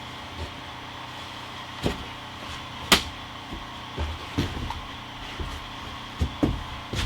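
Irregular wooden knocks and clunks, one sharp crack about three seconds in, from boards being handled and fitted, over a steady low hum.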